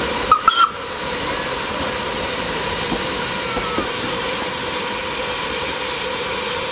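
Steady hiss of escaping steam from a standing steam engine on the Pichi Richi Railway, with a few short sharp squeaks about half a second in.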